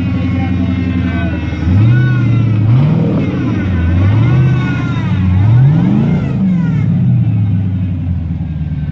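Twin-turbocharged 5.3-litre V8 in a Jeep, revved in several throttle blips under low-speed crawling. The pitch rises and falls about two seconds in, again around three seconds, and twice more around five to six seconds. A higher whine rises and falls with each blip.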